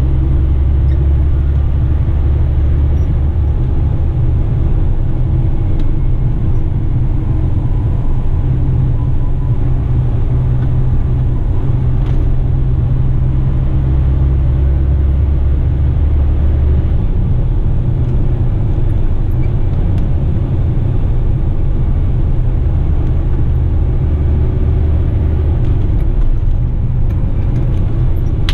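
Western Star heavy rigid truck's diesel engine and drivetrain rumbling steadily while driving, heard from inside the cab as a deep drone. The lowest part of the drone eases off about two-thirds of the way in.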